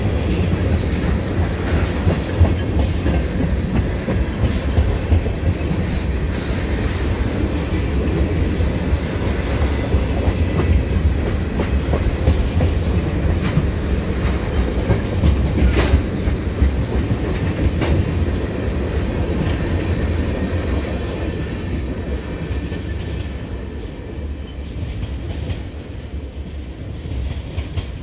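CN freight train rolling past: a steady rumble with the clickety-clack of its wheels over rail joints as the tank cars go by, easing off near the end as the last cars pass.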